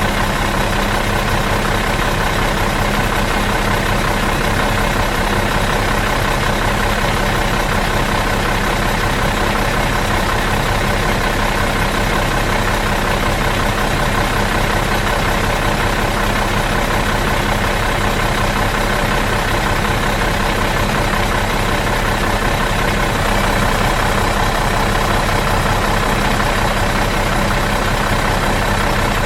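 Bus engine idling steadily in neutral, an even low drone that does not change.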